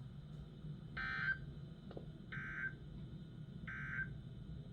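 Three short bursts of warbling digital data tones, about a second and a third apart: the SAME end-of-message code that closes a NOAA Weather Radio Emergency Alert System weekly test.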